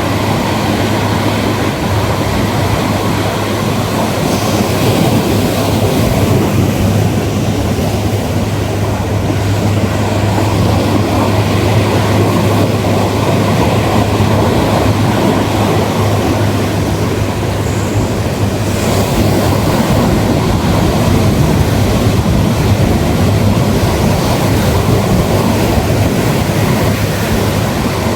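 Ocean surf washing onto a beach: a continuous, deep rushing noise that swells and eases slightly.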